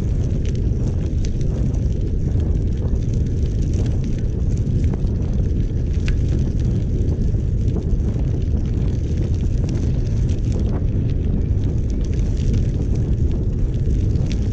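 Steady low rumble of wind buffeting the microphone, mixed with bicycle tyres rolling on a gravel towpath, with scattered small clicks of grit under the wheels.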